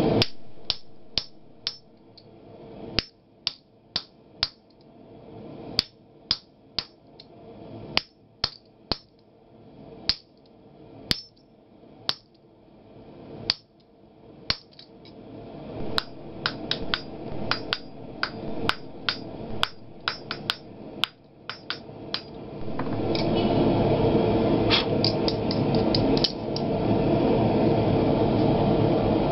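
Hammer blows on the top die of a blacksmith guillotine fuller/tenon tool, fullering a red-hot bar: sharp ringing metal strikes, some single and some in quick runs of lighter taps. About three-quarters of the way in, a steady loud rushing noise rises and takes over.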